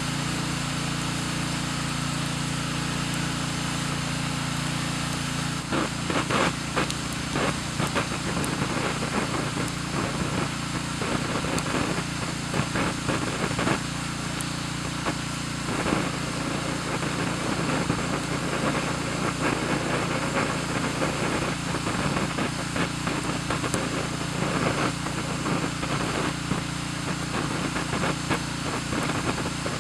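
Campfire crackling and popping irregularly from about six seconds in, over a steady low hum.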